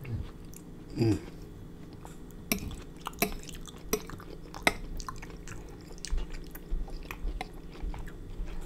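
Close-miked chewing of a creamy seafood and Alfredo sauce mouthful, with a short hummed moan falling in pitch about a second in and scattered sharp clicks of mouth and fork through the rest.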